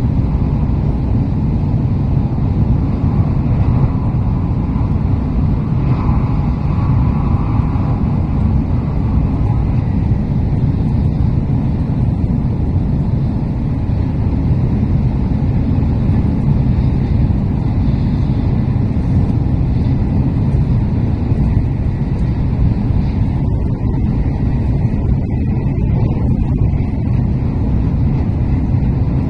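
Steady running noise of a Shinkansen train, heard from inside the passenger car: a deep rumble with a hiss above it. The hiss thins for a few seconds near the end.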